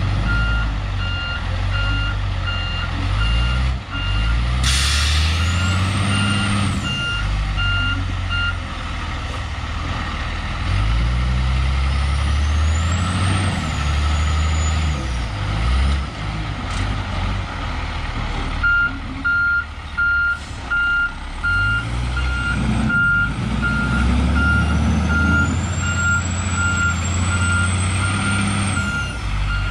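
Heavy diesel truck engine revving up and down repeatedly, with its backup alarm beeping steadily. The beeping stops for about ten seconds midway, then resumes. A short hiss about five seconds in, and a high whine that rises and falls a few times.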